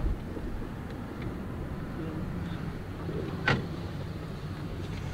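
Steady engine and road rumble heard inside a moving passenger van, with one brief sharp knock about three and a half seconds in.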